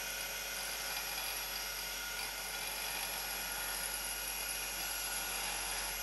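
Carbide tool tip ground on a green silicon carbide wheel driven by a washing machine motor: a steady grinding hiss over the motor's low hum, while a small nose radius is put on the tip.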